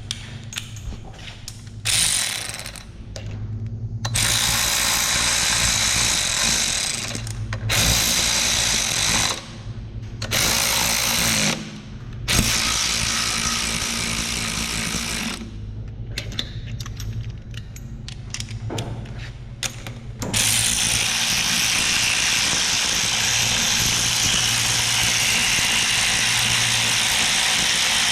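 Power impact wrench hammering on a stubborn engine fastener, in repeated bursts of a few seconds each, then one long continuous run over the last third.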